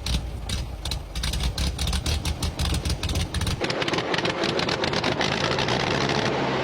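The abandoned Ditch Witch R40 trencher's gasoline engine running roughly, with a low, pulsing beat. About three and a half seconds in the low rumble gives way to a louder, higher rushing sound.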